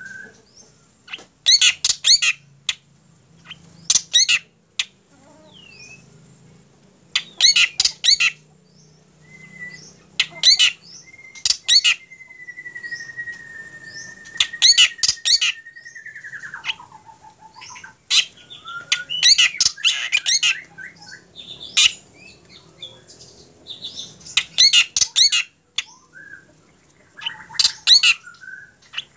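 Black drongo calling in bursts of rapid, harsh repeated notes every few seconds. In the middle comes one long, steady whistle that drops in pitch at its end.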